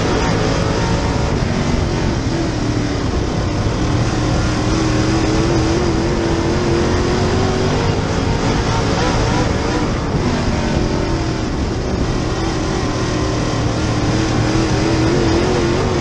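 Dirt Super Late Model race car's V8 engine heard from inside the car, running hard at high revs. The pitch sags and recovers as the driver lifts off and gets back on the throttle, dipping near the start and again around the middle, then climbing near the end.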